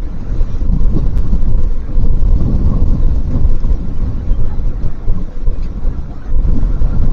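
Wind buffeting an outdoor microphone: a loud, gusty low rumble that swells and dips every moment.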